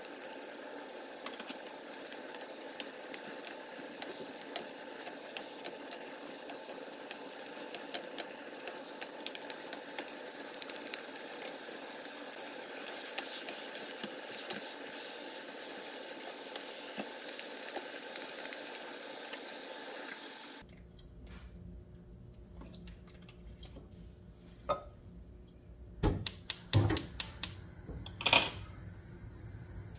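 Glass noodles and vegetables sizzling steadily in a frying pan while a wooden spatula stirs them, with many small clicks and scrapes against the pan. About two-thirds of the way through the sizzle stops suddenly, and a few sharp clatters of cookware follow near the end.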